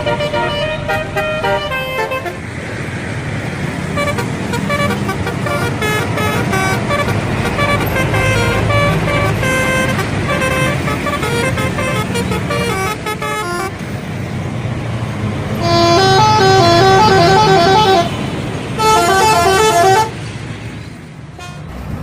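Indonesian bus telolet horns, a set of electric trumpet horns, playing quick stepped melodies over a bus engine running. The horns come in short phrases throughout, and are loudest in two long blasts about two-thirds of the way through.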